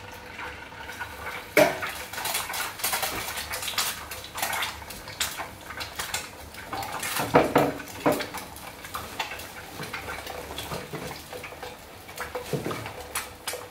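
A duck egg frying in oil in a pan, crackling and spitting, mixed with clinks and knocks of kitchen utensils and cookware. The sharpest knocks come about a second and a half in and about seven and a half seconds in.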